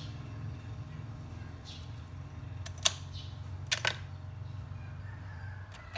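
Steady low hum with a sharp click about three seconds in and a quick pair of clicks just before four seconds, from small tools being handled on a phone-repair bench.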